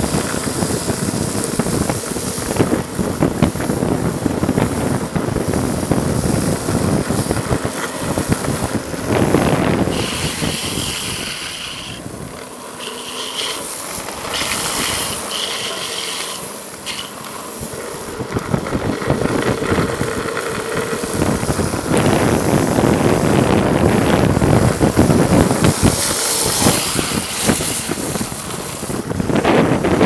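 Steady rush of wind on the microphone and road noise of the camera's vehicle and a longboard's wheels rolling on wet asphalt. About halfway through the noise eases and a few short high squeals sound as the rider slides with a gloved hand on the road.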